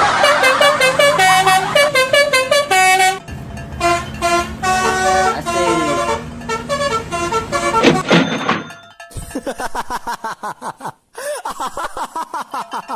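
Musical multi-tone 'telolet' bus horn sounding a tune of stepped notes, then a fast warbling trill in the last few seconds.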